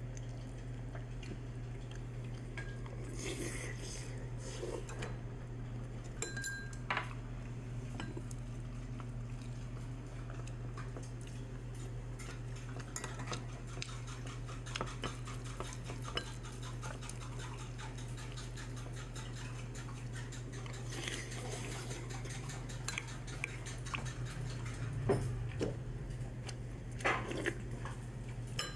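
Wooden spoon scooping and scraping rice in a ceramic bowl, with scattered small clinks and knocks of tableware, over a steady low hum.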